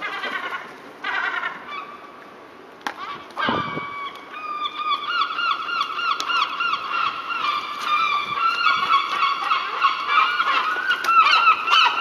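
Herring gulls calling over food: a few short squawks at the start, a sharp knock about three seconds in, then from about four seconds a long, rapid run of repeated loud calls as several gulls squabble over bread.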